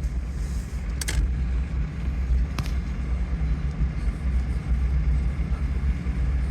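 A vehicle engine running with a steady low drone. Two short sharp clicks come through, about one second and two and a half seconds in.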